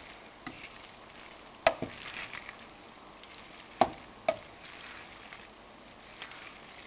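Wooden spoon stirring couscous and vegetables in a stainless steel pan: soft scraping with a few sharp knocks of the spoon against the pan, the loudest about a second and a half and about four seconds in.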